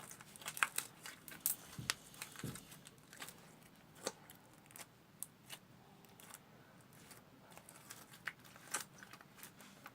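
Homemade slime being kneaded and stretched by hand: a faint, irregular run of small sticky clicks and pops, thicker in the first few seconds and again near the end.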